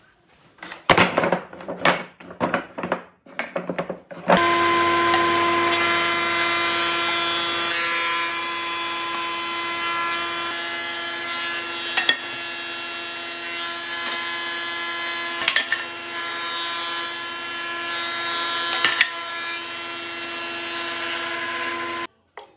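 Wooden planks knocking and clattering as they are handled. Then a woodworking planer-thicknesser runs steadily with a whine of many fixed tones while boards are planed, with a few sharp clicks a few seconds apart, until it cuts off suddenly near the end.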